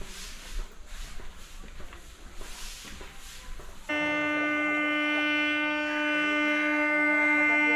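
Faint clatter and hiss, then about four seconds in a MEMU electric train's horn starts and holds one long, steady note.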